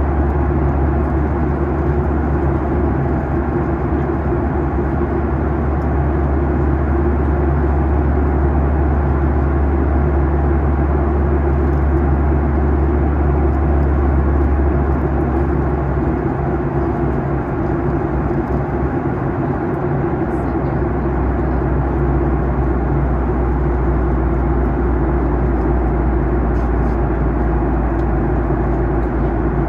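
Steady in-flight cabin noise of a Boeing 737-800: a rush of airflow over the fuselage with the low drone of its CFM56-7B engines. The deepest part of the drone fades away about halfway through and comes back a few seconds later.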